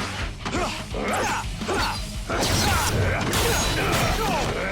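Fight-scene sound effects, metallic clanks and impacts, over dramatic background music, growing louder about two seconds in.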